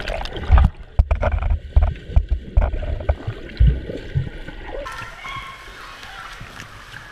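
Swimmers' strokes heard through an underwater action camera: muffled thumps, knocks and bubbling. About five seconds in, the camera comes up through the surface and the sound opens into steady splashing water.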